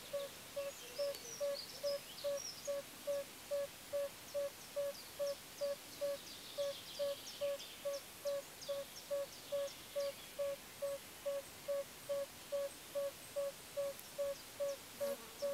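Yellow-bellied toad calling: a short, even-pitched note repeated at a steady pace of about two a second.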